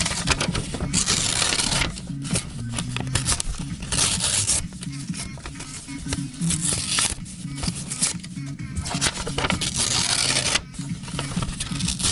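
Souvenir paper banknotes rustled and crinkled by hand in repeated bursts of about a second each, over background music.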